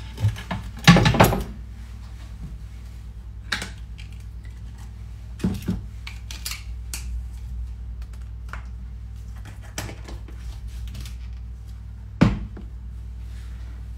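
Kitchen utensils handled on a stone countertop: a clatter about a second in as a knife and plastic cutting board are moved, then a few scattered light knocks and clicks, over a steady low hum.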